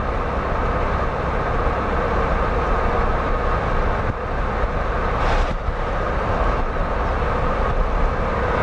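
A moving vehicle's steady road and engine noise: a constant rumble and hiss, with a short louder hiss about five seconds in.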